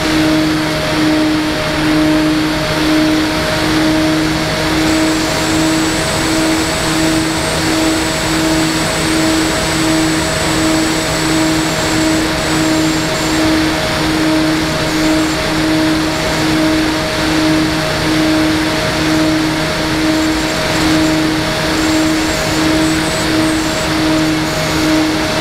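Electric motors and propellers of a twin-motor FPV model plane running steadily in flight: a held hum whose pitch pulses regularly, over a steady hiss, with a faint high whine.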